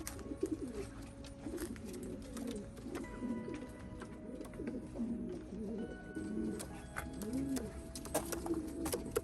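Domestic racing pigeons cooing, many low arching coos overlapping one after another, with a few sharp taps near the end.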